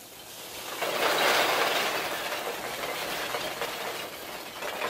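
Styrofoam packing peanuts rustling and clattering as they are scooped out of a cardboard box by hand, a dense continuous rustle that swells about a second in and then carries on a little quieter.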